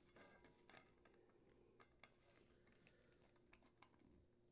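Near silence with faint, scattered small clicks, more of them in the first second, of a nut and bolt being fastened by hand on a sheet-metal access panel.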